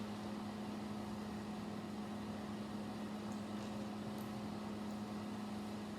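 Steady low hum with an even hiss, with a few faint small clicks of LEGO pieces being handled in the second half.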